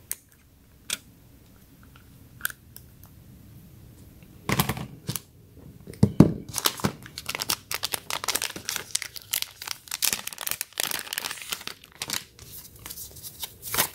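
A few sharp clicks as a phone is pried out of a snug plastic case. Then, from about four seconds in, dense plastic crinkling and tearing as a plastic retail bag holding a new phone case is handled and opened.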